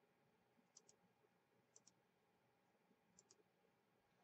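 Near silence broken by faint, short double clicks, three pairs in all.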